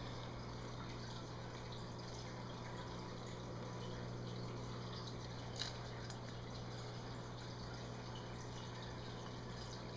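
Aquarium water trickling and dripping over a steady low hum, with one sharp click a little past halfway.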